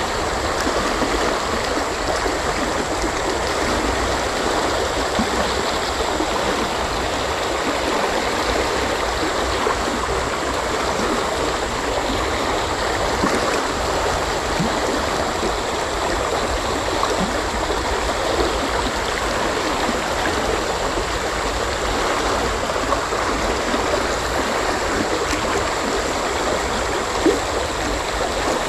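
A fast, shallow river rushing steadily over rocks, a dense even wash of running water that the speaker calls very fast. One brief knock near the end.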